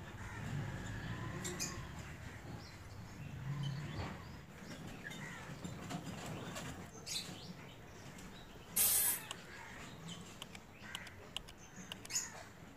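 Birds calling in the background, with small clicks and rustles of hands working, and a short loud rustle about nine seconds in.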